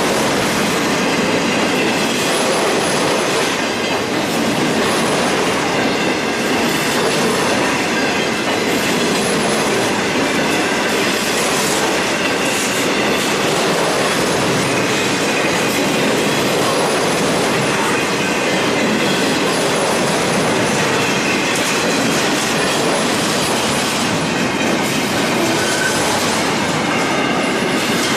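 Intermodal container train's well cars rolling past at speed: a steady, loud rumble and rattle of steel wheels on rail, with faint high wheel squeal coming and going.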